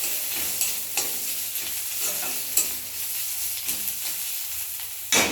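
Onion paste and green chillies sizzling as they fry in hot oil, stirred with a spatula that scrapes and taps the pan about once or twice a second, with one louder knock on the pan near the end.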